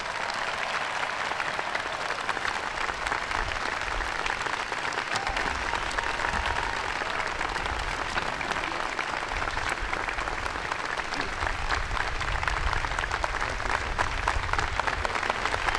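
Crowd applauding steadily, a dense continuous patter of many hands clapping.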